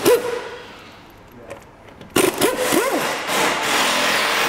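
Air impact wrench on wheel bolts: a short burst at the start, then about two seconds in it runs again for a couple of seconds, a whine that rises and falls over a steady hiss of air, as the loosened bolts are run out.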